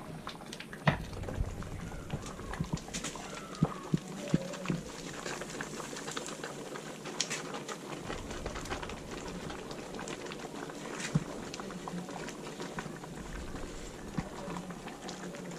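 Corn cooking with herbs: a steady bubbling hiss with many scattered sharp clicks and knocks.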